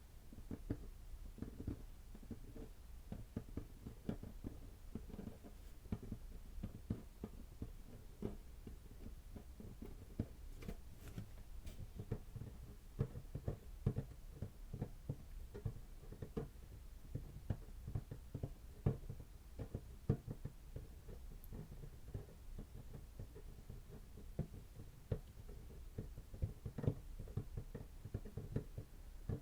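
ASMR tapping: many soft, irregular taps, several a second, with a few sharper ones standing out.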